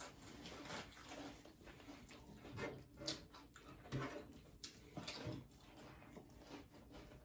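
Chewing and mouth sounds of eating a sandwich and chips, with soft, irregular clicks and crackles.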